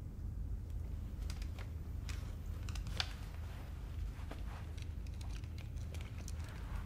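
Low steady room hum with scattered small clicks and soft rustles as a pair of wire-rimmed glasses is handled and taken off; the sharpest click comes about three seconds in.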